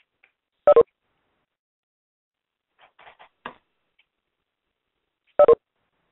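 Conference-call line beeps: two short, loud electronic double beeps about four and a half seconds apart, with a few faint brief crackles between them.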